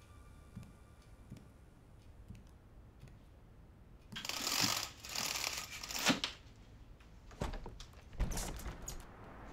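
Slow footsteps on a wooden floor, then a venetian blind pulled up with a rattling rustle of its slats for about two seconds. A couple of clicks follow, and near the end a wooden window sash is pushed open with a short scraping rattle.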